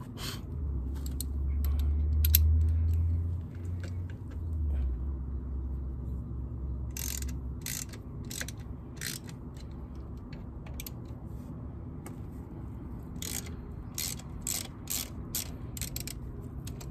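Hand ratchet wrench with a T40 Torx bit clicking in short runs of quick clicks, loosening the rear brake caliper bolts of a motorcycle. A low rumble lies underneath for the first seven seconds or so.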